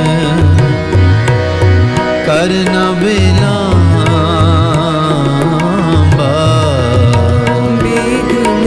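Sikh devotional kirtan: a man and a woman singing the shabad in an ornamented, wavering melody over a harmonium, with tabla keeping the rhythm and its bass drum sliding in pitch.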